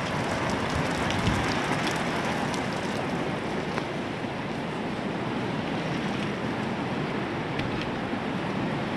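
Steady rain falling: an even hiss with scattered sharp ticks of single drops.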